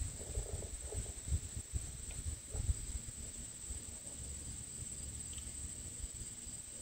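Insects droning steadily at a high pitch, with irregular low rumbles of wind on the microphone that ease off after about three seconds.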